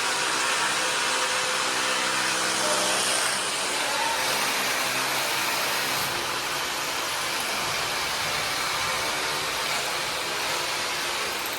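A motor-driven machine running steadily: a loud, even hiss over a low humming drone, the hum growing fainter about halfway through.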